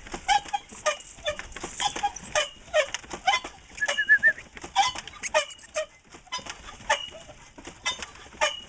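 Many sled dogs barking and yipping in short, irregular calls, several a second.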